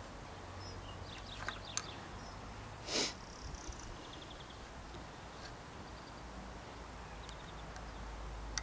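A few light clicks as a thumb-shifter and its clamp are handled and slid onto a bicycle handlebar, with one short sniff about three seconds in.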